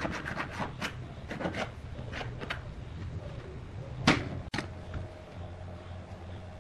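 Ballpoint pen scratching along the edge of a paper template on a hardwood board in short, irregular strokes, with one louder stroke about four seconds in, over a faint steady hum.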